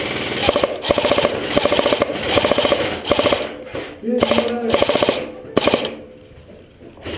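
Airsoft guns firing rapid automatic bursts, pellets cracking off in quick strings, with a short shout in the middle; the firing stops about a second and a half before the end.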